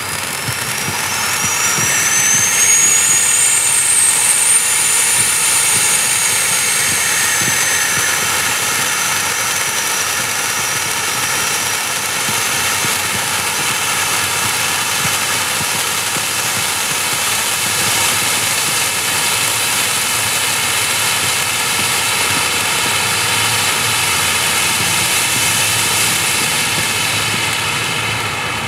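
Black Cat Plasma Gun firework fountain spraying sparks: a steady, loud rushing hiss. A whistle climbs in pitch over the first few seconds, then slowly drops and fades, and the spray begins to die away near the end as the fountain burns out.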